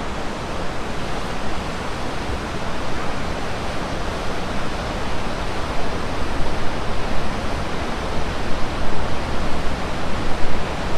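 Loud, even rush of water pouring over falls and rapids.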